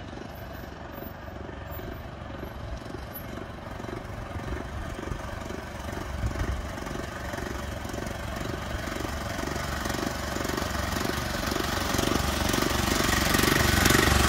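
Small carbureted gasoline engine of a motorized vintage pedicab running as the pedicab rides up, growing steadily louder as it nears.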